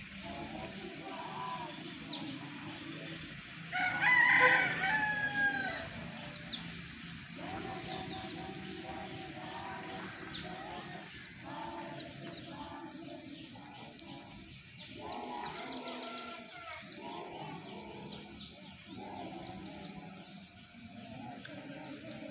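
A rooster crows once, loudly, about four seconds in, its call ending on a falling note. Short high bird chirps sound here and there over a steady outdoor background.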